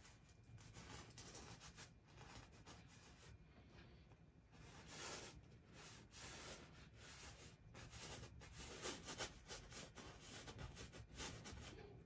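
Faint scrubbing and swishing of a wide bristle brush working oil paint onto a canvas, in uneven strokes.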